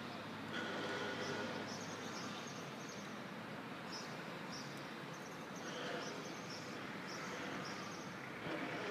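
Outdoor ambience: a steady background hiss with small birds chirping over and over in short, high notes.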